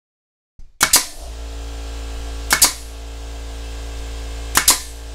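16-gauge pneumatic brad nailer firing three times, about two seconds apart, each shot a sharp double crack as it drives a brad into a pine board. A steady low machine hum comes in after the first shot and runs under the rest.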